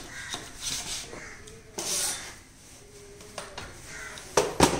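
Long knife scraping and cutting through a brittle slab of set peanut chikki on a metal-topped table, several gritty scraping strokes, with two sharp knocks near the end.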